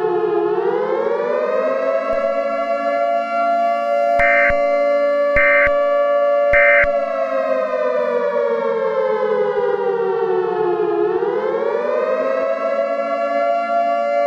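Civil defense siren winding up, holding its pitch, slowly winding down and then winding up again. Three short beeps about a second apart sound over it in the middle.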